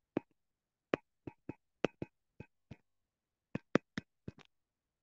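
Stylus tapping on a tablet screen while handwriting an equation: about a dozen short, irregular clicks, stopping about four and a half seconds in.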